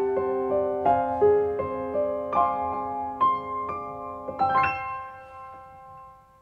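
Background piano music: a gentle melody of single notes, closing on a chord about four and a half seconds in that rings out and fades away.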